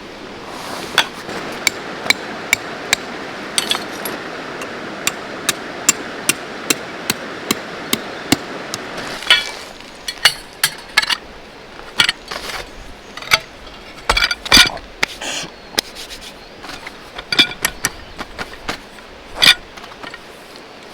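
Hammer driving tent stakes, a run of sharp, evenly spaced strikes about two to three a second. From about nine seconds in come louder, irregular knocks.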